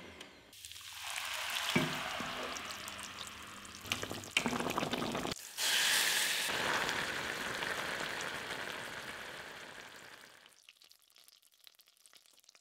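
Food sizzling in a hot pot, with scattered clicks from stirring. The sound breaks off briefly about halfway, comes back loud, then fades away near the end.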